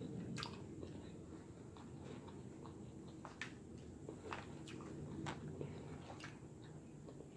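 Close-miked chewing of a Cobb salad with lettuce and broken-up crackers, with about half a dozen sharp clicks as a metal fork picks at the salad in a glass bowl.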